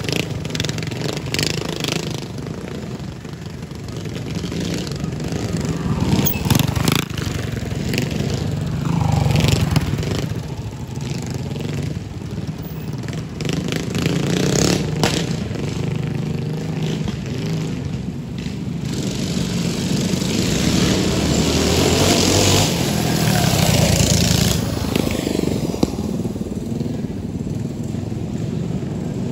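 Several mini bike engines running and revving, the engine sound rising and falling, with a louder rushing passage in the last third.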